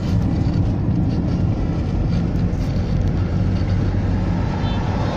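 Inside a moving car on a loose gravel road: a steady low rumble of tyres and engine, with a few faint clicks about two to three seconds in.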